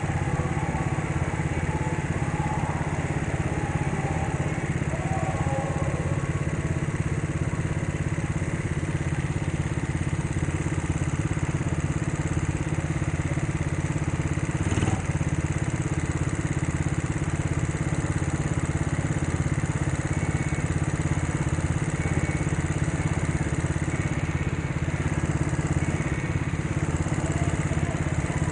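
Go-kart engine running steadily as the kart laps the track, heard from the driver's headcam, with one short knock about halfway through.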